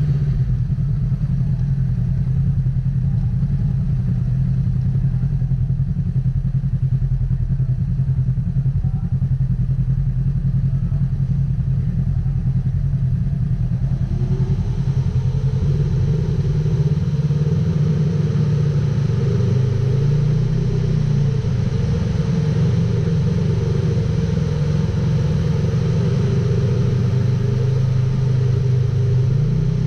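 Polaris RZR XP 1000 side-by-side's twin-cylinder engine running steadily, getting fuller and brighter about halfway through, with brief dips and rises in pitch twice after that.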